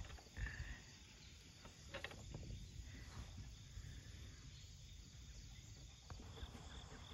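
Faint outdoor ambience of insects, likely crickets, chirring steadily under a low rumble, with a couple of faint knocks.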